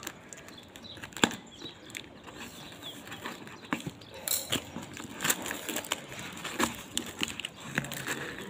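Scissors cutting through a plastic parcel wrapped in packing tape, the plastic crinkling and rustling as it is handled, with irregular snips and clicks and one sharper click about a second in.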